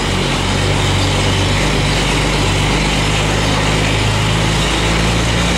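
Diesel engine idling steadily, a constant low drone.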